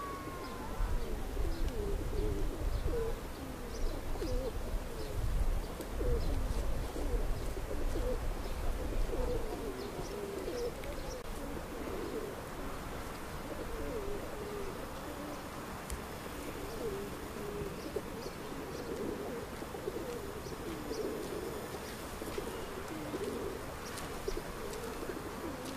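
A flock of pigeons cooing, many low overlapping coos throughout. A low rumble sits under them for the first ten seconds or so.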